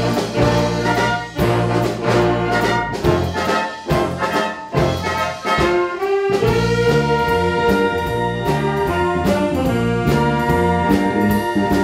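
Wind orchestra of clarinets, brass and percussion playing a medley of Korean popular songs. It plays short, rhythmic accented notes with percussion strikes for about six seconds, then settles into long held chords.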